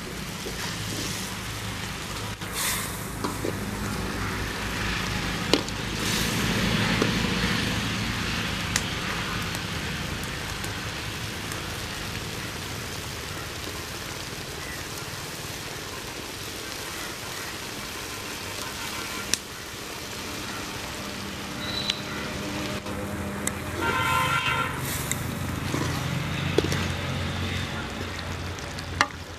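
A pot of fish curry bubbling over a wood fire, under a steady low engine-like hum that fades in the middle and comes back near the end. A short horn-like honk sounds about 24 seconds in.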